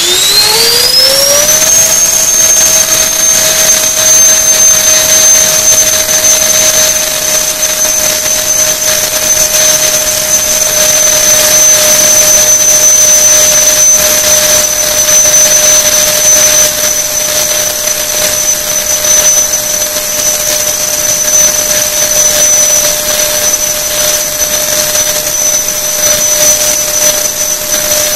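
Lander CS10 70 mm ten-blade alloy electric ducted fan, driven by a 2960 2200 kV motor on 6S, finishing its spool-up with a rising whine over about the first two seconds. It then runs at wide-open throttle with a steady high whine over a broad airy hiss, turning about 36,000 rpm for roughly 1.8 kg of static thrust.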